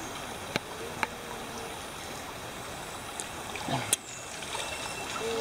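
Shallow stream water trickling and sloshing as a person wades and reaches under the surface, with a few sharp clicks, the loudest near the end.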